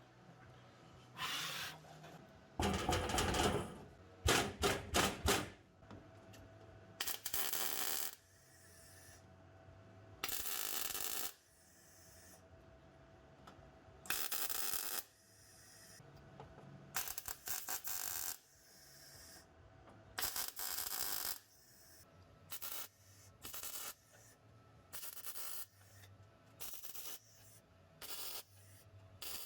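A welder laying short tack or stitch welds on new sheet-steel floor panel: about twenty crackling bursts, each under two seconds, with short pauses between them.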